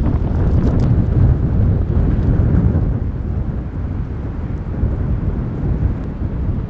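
Wind buffeting the microphone: a gusty low rumble, easing a little about halfway through.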